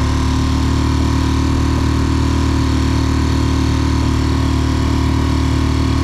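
Mercury F3.5 four-stroke single-cylinder outboard motor running steadily, pushing an inflatable boat. The motor chokes when given more throttle, which the owner most likely puts down to the carburettor.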